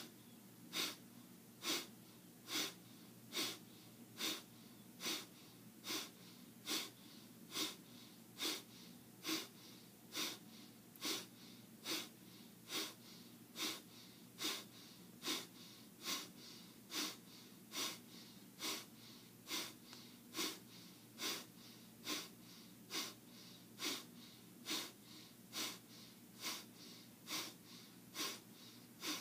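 A man's quick, forceful out-breaths through the nose, short sharp puffs repeated evenly a little faster than once a second, each in-breath passive and unheard: a rapid-exhalation breathing exercise.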